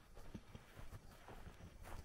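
Faint, soft footsteps of someone walking on grass and bare earth: irregular dull thumps a few times a second.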